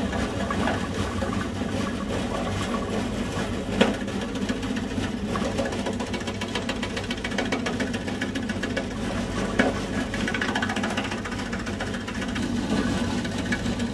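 Stainless-steel Denshin onion and cassava slicing machine running steadily, its blade rapidly slicing shallots pressed down the feed tube, with a sharp knock about four seconds in and again near ten seconds.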